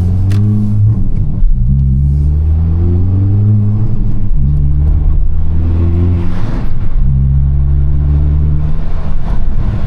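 2022 Honda Civic Si's turbocharged 1.5-litre four-cylinder accelerating hard, its pitch climbing and then dropping at each of three upshifts.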